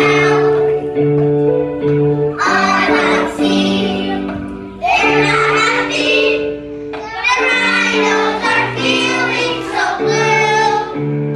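Children singing a song over instrumental backing music, in phrases with short breaks between them.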